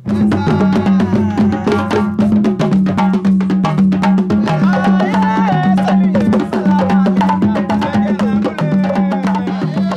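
Music led by fast hand-drum strokes on djembe-style drums, over a steady low note that shifts pitch now and then, with a wavering melody line above.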